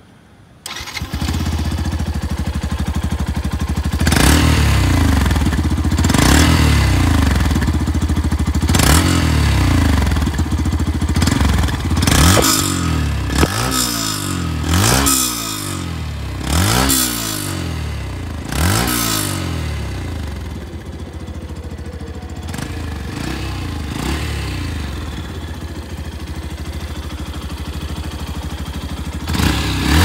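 Yamaha FZ-X's 150 cc single-cylinder engine starting, idling and given about eight quick throttle blips, each one rising in pitch and falling back to idle. It then settles to a steady idle, with one more rev near the end.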